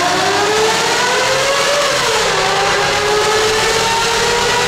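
Mercedes-Benz W140 S600's V12, fitted with a Brilliant aftermarket exhaust, accelerating through a road tunnel. The revs climb, fall as it shifts up about two seconds in, then climb again in the next gear.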